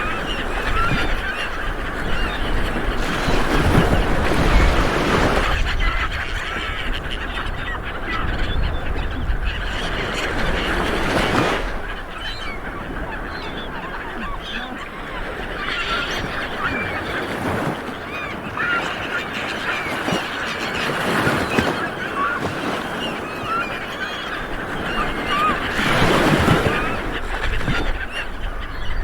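Small waves washing onto a beach, the surf swelling and falling back every several seconds, with many birds calling continually over it.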